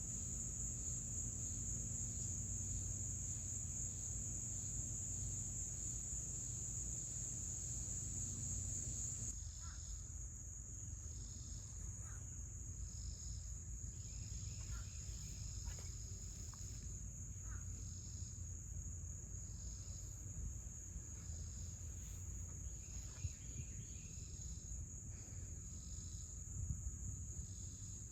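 Chorus of insects, such as crickets, trilling steadily at a high pitch. About nine seconds in the sound changes abruptly, and a second rhythmic chirping joins at roughly one call a second.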